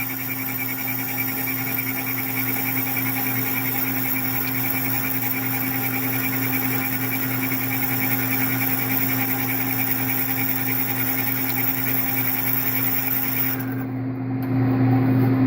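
Metal lathe running with a boring bar under power feed taking a heavy rough cut inside bushing stock: a steady machine hum with a pulsing high ringing from tool chatter. About fourteen seconds in the high cutting sound cuts off and the low hum gets louder.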